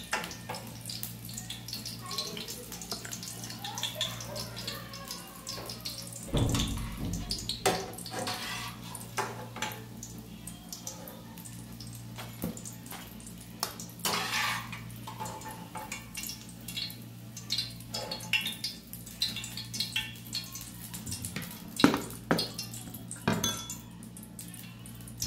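Metal spatula scraping and clinking against a frying pan while fried patties are lifted out of hot oil, over the steady sizzle of the frying oil. One heavier thump about six and a half seconds in.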